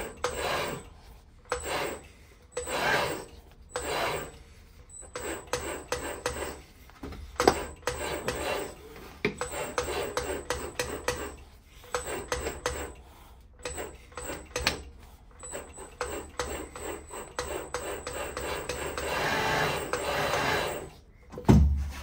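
Thin 0.6 mm stainless steel sheet rolled between the wheels of a swaging machine as its edge is turned inward. The metal rubs and scrapes against the wheels in uneven strokes of about a second each, with a dull thump near the end.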